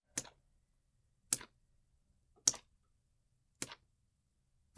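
Slow, even footsteps used as a sound effect: five sharp steps about a second apart, each with a softer click just after, over a faint low hum.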